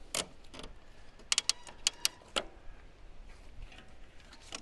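Ratchet wheel straps on a Thule EuroWay G2 920 tow-bar bike carrier clicking as they are pulled tight. There is one sharp click right at the start, a quick run of about three clicks about a second and a half in, then a few single clicks.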